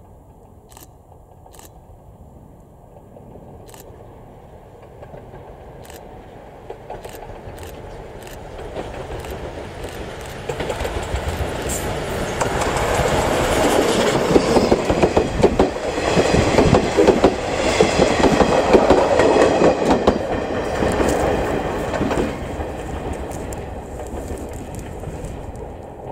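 A JNR Class C11 steam tank locomotive hauling 50-series passenger coaches approaches and passes close by. The clatter of wheels over the rail joints grows steadily, is loudest from about halfway in to near the end as the coaches roll past, then fades.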